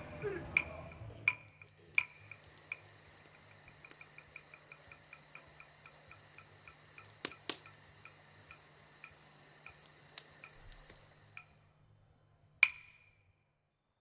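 Night insects, crickets among them, chirping: a steady high trill with soft, evenly spaced ticks. It fades out near the end, and then comes one sharp click with a brief ring.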